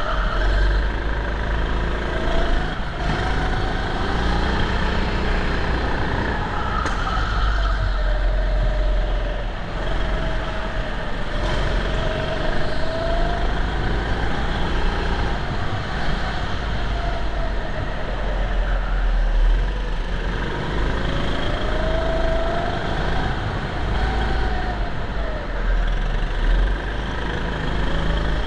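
Go-kart motor running at racing speed, heard from on board, its pitch dipping and rising over and over as the kart slows for corners and speeds up again, over a heavy low rumble.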